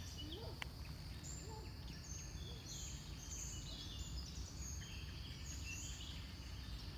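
Small birds chirping in many short, high calls over a steady low rumble of outdoor background noise.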